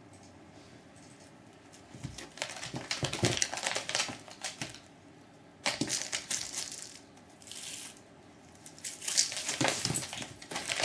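An Egyptian Mau kitten's claws scratching and scrabbling at a rope-wrapped scratching post and its carpeted base, in several bouts of rasping that start about two seconds in.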